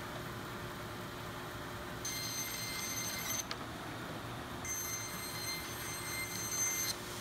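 Vertical bandsaw running with a steady hum while its blade cuts through a vacuum-formed black HDPE sheet, trimming off the excess scrap edge. Two cuts, about two seconds in and again near five seconds, each giving a high, steady ringing whine for a second or two.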